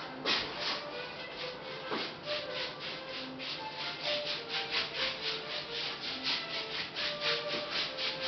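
Small hand-held pad rubbing paint onto a large painting board in quick scratchy strokes, about four a second, over faint background music.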